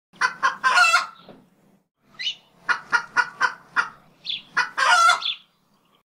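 Chicken clucking: two runs of short clucks, each ending in a longer drawn-out call, with a pause of about a second between them.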